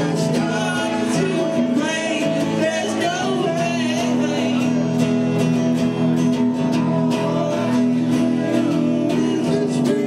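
Live band music with a strummed guitar and singing.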